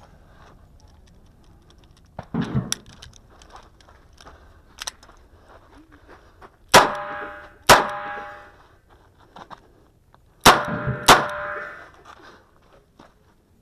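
Four shots from a Smith & Wesson Model 640 J-frame revolver in .38 Special, fired in two pairs about three seconds apart, each with a short ringing tail. A duller metallic clack from handling the revolver comes about two seconds in.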